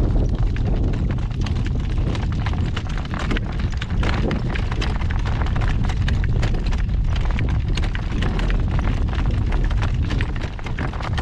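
Gale-force wind buffeting the microphone with a loud, steady rumble. Through it come constant sharp clicks and clatter from the driven horse's hoofbeats and the cart jolting over rough pasture ground.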